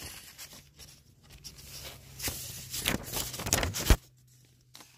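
Paper and cardboard packaging being handled: a sheet of paper and box flaps rustling and scraping in irregular bursts, ending in a sharp tap just before the sound drops away near the end.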